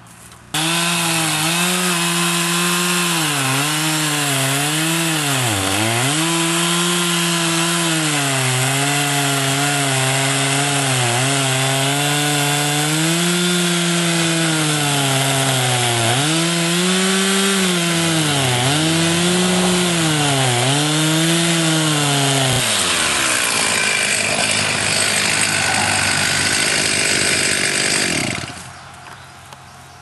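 Chainsaw cutting into a log, its engine pitch dipping again and again as the chain bites into the wood. It starts about half a second in and cuts off a couple of seconds before the end.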